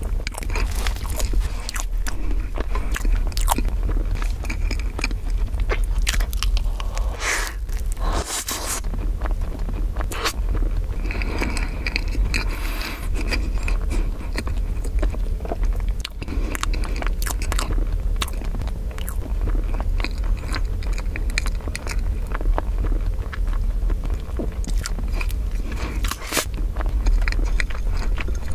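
Close-miked chewing of a mouthful of strawberry crepe cake and whipped cream: soft, wet mouth sounds and small smacks all through, a few louder ones now and then, over a steady low hum.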